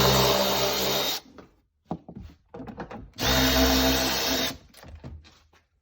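Power drill spinning a 10 mm socket to undo nuts, in two runs of about a second and a half each, with light clicks between them.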